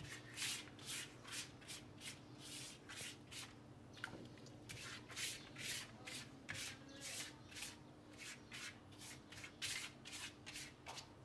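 Silicone pastry brush swished over a thin sheet of yufka dough, spreading a liquid egg-and-milk wash in quick short strokes, about two or three a second.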